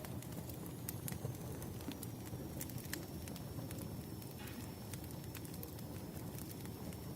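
Wood fire crackling: scattered sharp pops and ticks over a low, steady rumble of burning logs, with a faint high whine underneath.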